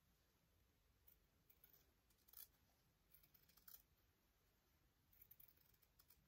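Faint snipping of scissors cutting through a fabric appliqué piece: short, irregular snips, the loudest about two and a half seconds in.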